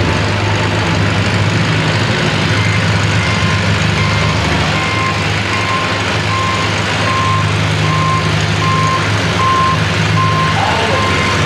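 Antique tractor engine running loud and steady at the pull, with a backup alarm beeping evenly about twice a second from a few seconds in.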